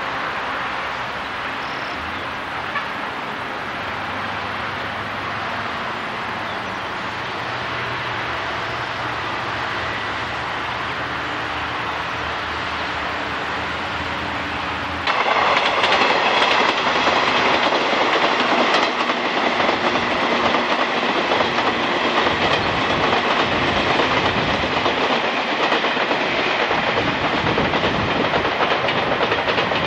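Train running on the rails, wheels clicking over the rail joints. About halfway through, the sound cuts abruptly to a much louder, closer train passage.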